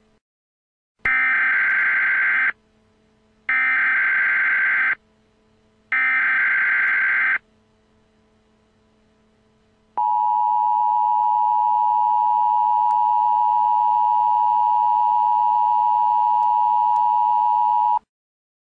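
Emergency Alert System header: three identical screeching digital data bursts of about a second and a half each, followed about two and a half seconds later by a steady attention tone held for about eight seconds before cutting off.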